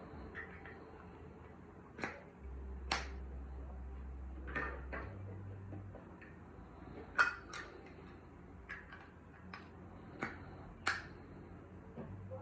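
Sharp clicks and taps, about ten of them at irregular intervals, over a faint low steady hum.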